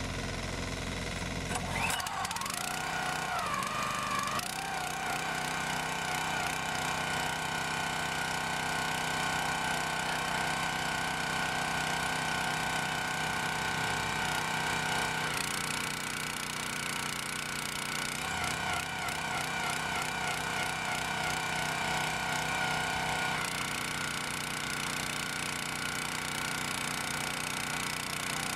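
Small single-cylinder 6.5 PS OHV petrol engine of a log splitter running steadily. About two seconds in, its pitch rises as it speeds up, and its note shifts a few times after that.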